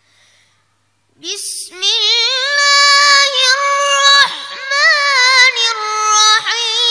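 A boy reciting the Quran in a high, melodic chant, with long held notes and quick ornamental turns, beginning after about a second of quiet.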